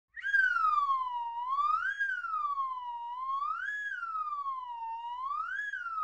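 A siren-like wailing tone. It slides slowly down in pitch and then quickly back up, repeating about every two seconds, and starts abruptly at the very beginning.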